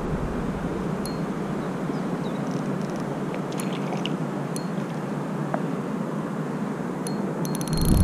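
Steady hiss of light breeze in the open air, with a few faint ticks. Near the end, wind begins to buffet the microphone with a low rumble.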